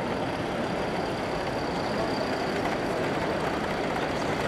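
Steady background din of a busy exhibition hall: crowd hubbub and general hall noise, with a faint high steady tone running through it.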